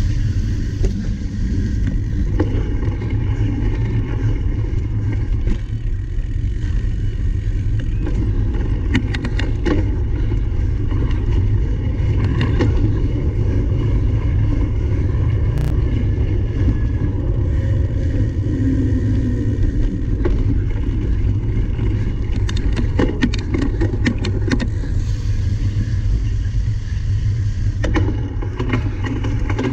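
Wind rushing over the microphone of a camera on a cyclocross bike ridden at speed, a steady low rumble with scattered clicks and rattles from the bike over rough ground.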